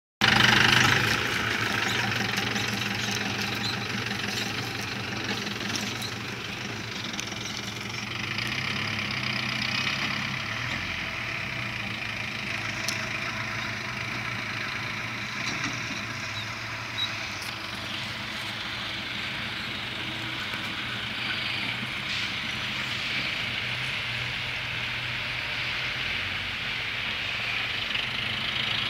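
Nissan Jonga jeep's engine running steadily as it drives over a ploughed field. It is loudest at the start beside the jeep and fainter after a few seconds as the jeep pulls away.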